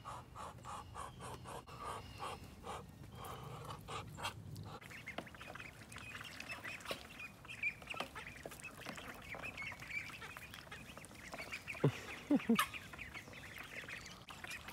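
Young Indian runner ducklings peeping and chattering, with a few short, lower calls near the end.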